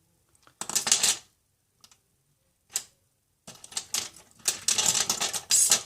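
Clicking and light rattling of small hand tools and phone parts being handled, with a few single clicks and then a quick run of clattering near the end.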